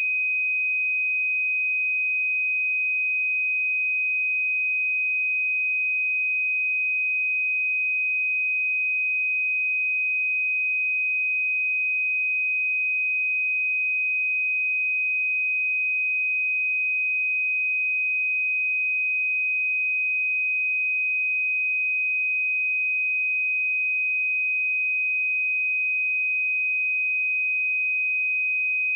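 Pure 2512 Hz sine-wave test tone, a single steady high-pitched note held at constant level.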